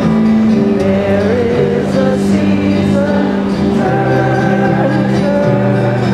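Live twelve-string acoustic guitar playing sustained chords, with a wordless melody line gliding and wavering above them.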